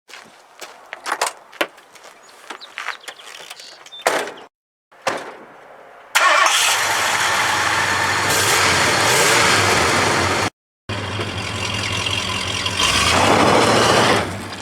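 Light clicks and knocks, then a small engine on the Craftsman snowblower, a Tecumseh, comes in abruptly about six seconds in and runs loudly and steadily. It drops out briefly and returns, getting louder near the end.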